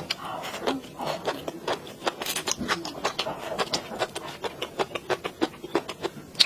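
Close-miked eating sounds: rapid, irregular clicks, taps and scrapes of utensils against a bowl of rice.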